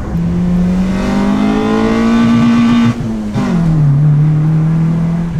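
Mitsubishi Lancer's 4G15 four-cylinder engine, breathing through an open pod air filter, accelerating with its note rising for about three seconds. It then briefly cuts and settles to a lower, steady note.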